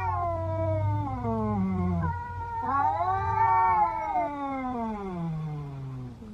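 Domestic cat's fight yowl: two long drawn-out caterwauls, the first ending about two seconds in, the second rising a little and then sliding steadily down in pitch.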